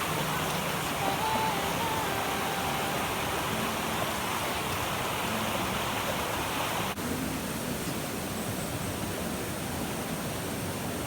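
Steady rush of water from a mountain valley stream, with a brief dip about seven seconds in.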